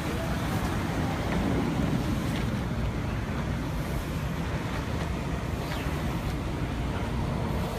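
Steady low rumble of road traffic, with wind buffeting the phone's microphone.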